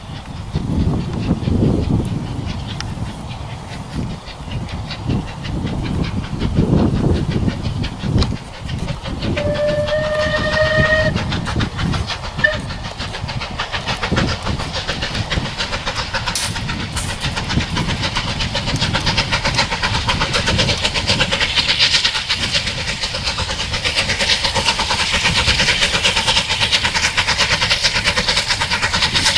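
Steam locomotive working a train, its heavy exhaust beats in the first several seconds. It gives a short whistle about ten seconds in, then the train passes with a building noise of wheels and carriages on the rails.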